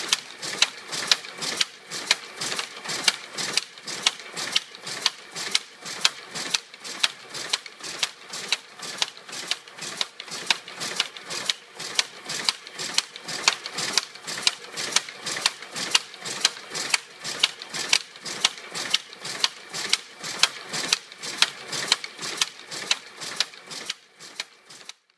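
A steady, even rhythm of sharp mechanical clicks, about two and a half a second, with a hiss between them; it fades out near the end.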